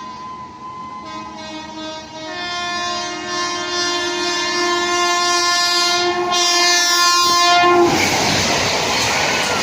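Horn of a WAP-7 electric locomotive sounding one long continuous blast that grows louder as the train approaches and cuts off sharply about eight seconds in. It gives way to the loud rushing noise of the train passing close by.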